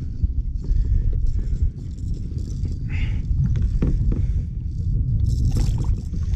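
Freshwater drum (sheepshead) grunting at the surface, a low, choppy drumming made by muscles working against its swim bladder.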